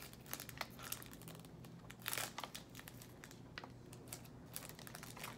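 Toy packaging crinkling as it is handled, in soft irregular crackles, with a louder flurry about two seconds in.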